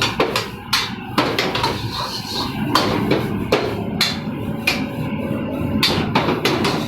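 Irregular sharp knocks and clatters of kitchen work, a dozen or so hard taps at uneven intervals over a steady background hum.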